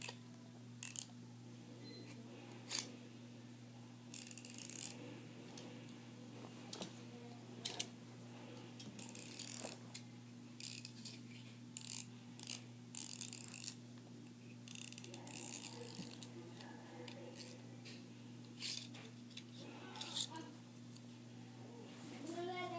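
Scissors cutting and handling noise: irregular short snips and rustles, over a steady low hum.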